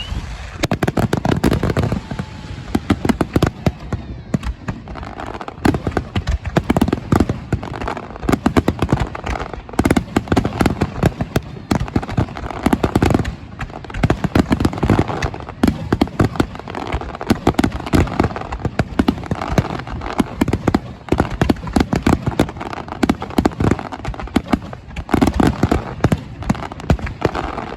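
Aerial fireworks bursting in a rapid, unbroken barrage of many bangs and crackles, as in a fast-fire display.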